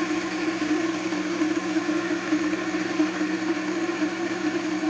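Almond Cow milk maker running steadily, its motor spinning the blade in the filter basket to blend oats and water into oat milk: a steady whir with a strong hum.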